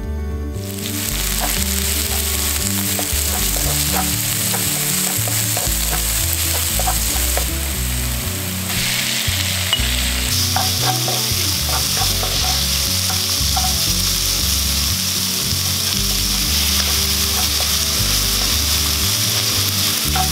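Chopped onion, leek, chilies and minced pork sizzling hard in chili oil in a hot non-stick wok as they are stir-fried, with the spatula clicking and scraping against the pan. The sizzle starts about half a second in.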